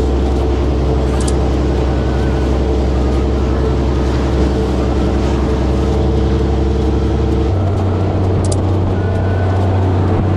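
An engine runs steadily at a constant speed. About seven and a half seconds in, its note changes abruptly.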